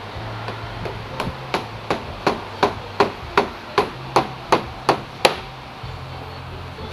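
A mallet knocking a new handlebar grip onto a scooter's handlebar: about a dozen sharp, evenly paced blows, roughly three a second, getting louder, then stopping.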